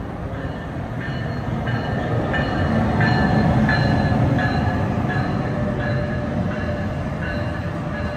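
NJ Transit ALP-46 electric locomotive and its double-deck MultiLevel coaches passing close by at speed. The rumble of the train rolling by builds to its loudest about three seconds in, then holds steady, with short high-pitched tones coming and going over it.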